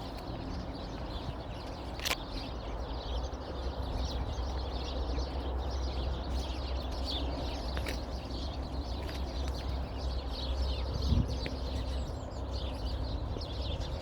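Many small birds chirping over one another in a continuous dawn chorus, over a steady low rumble. One sharp click about two seconds in.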